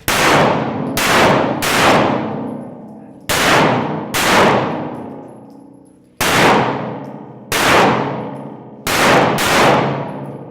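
Nine pistol shots in an uneven string (three, two, one, one, two), each followed by a long metallic ringing decay.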